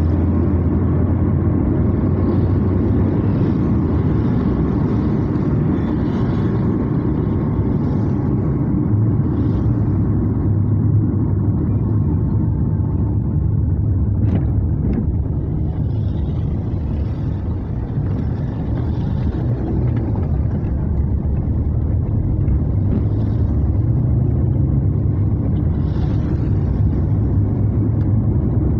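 Car driving on a wet road, heard from inside the cabin: a steady rumble of engine and tyres, with tyre noise from the wet tarmac. A couple of brief clicks about halfway through.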